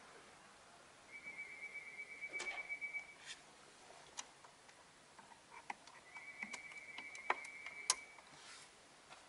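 Small plastic clicks from a Volkswagen Scirocco's dashboard air vent slats and thumbwheel being moved by hand, irregular and sharpest near the end. A high, faintly pulsing tone sounds twice, each time for about two seconds.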